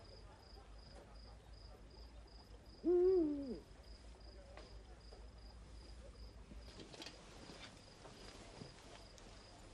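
A single owl hoot about three seconds in, rising then falling, over crickets chirping steadily at about three chirps a second.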